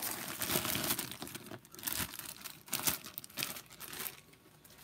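Clear plastic bag crinkling and rustling as it is handled, in irregular crackles that die away near the end.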